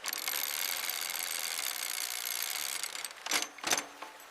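A loud, rapid mechanical rattle runs for about three seconds and cuts off, followed by two sharp knocks.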